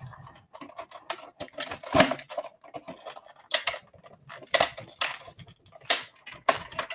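Computer keyboard being typed on: irregular key clicks and taps at an uneven pace.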